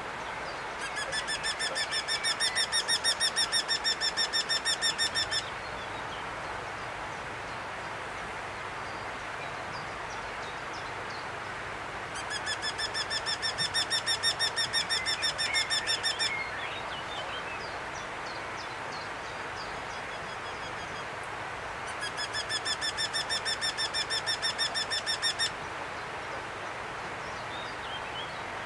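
Eurasian wryneck singing: three bouts of rapidly repeated, evenly spaced notes, each bout lasting about four seconds, roughly ten seconds apart.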